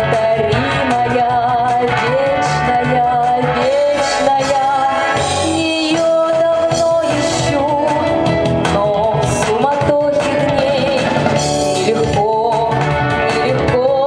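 A female vocalist singing a held, wavering melody into a handheld microphone over instrumental accompaniment.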